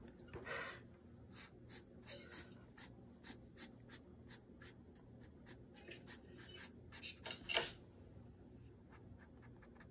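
Faint scratching of a drawing tool on paper in short strokes that come in quick runs, with a louder scrape about seven and a half seconds in.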